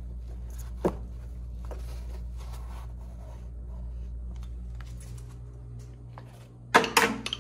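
Handling noises from working a PEX water line and its brass fitting by hand inside the wall: small clicks and scrapes, a sharp tap about a second in and a cluster of louder knocks near the end, over a steady low hum.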